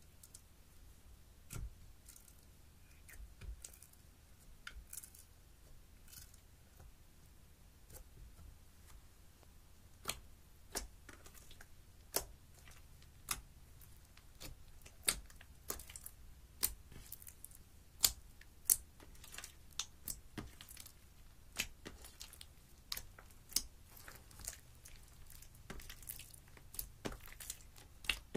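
Hands kneading and pressing slime mixed with crushed eyeshadow: irregular sticky pops and crackles. They are sparse at first and come about once or twice a second from roughly ten seconds in.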